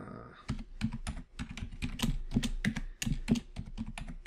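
Typing on a computer keyboard: a quick, uneven run of keystrokes as a password is entered at a terminal prompt and then retyped.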